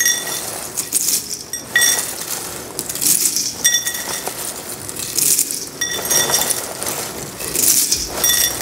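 Dry Chex cereal poured from its box into a metal measuring cup and tipped into a stainless steel stockpot, again and again every couple of seconds: a dry rattling rush of cereal pieces, with metal clinks that ring briefly.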